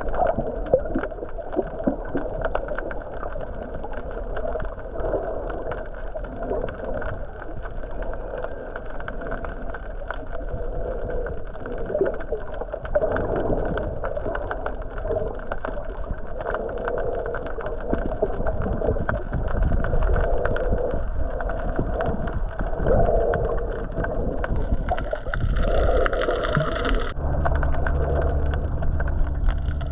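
Muffled underwater noise from a snorkeling camera: water rushing with constant small crackles and pops. Near the end, after a cut, a steady low hum comes in.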